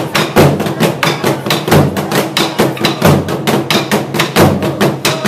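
Burundian drums, tall wooden drums with hide heads, beaten with wooden sticks by several drummers together: a fast, steady stream of sharp stick strikes, with a heavier deep beat landing about every second and a quarter.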